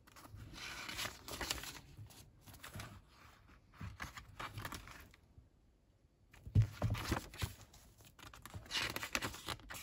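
Paper pages of a thick handmade junk journal rustling and crinkling as they are turned and handled, with a quieter pause partway through and a soft thump about two-thirds of the way in.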